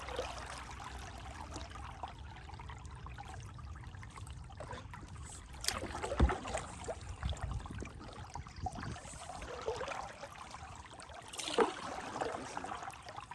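Running water trickling and flowing, with louder splashes about six seconds in and again near the end.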